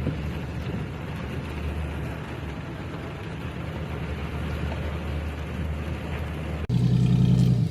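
Car running in the rain: a steady wash of engine, road and rain noise. Near the end it cuts abruptly to a louder, steady low engine hum.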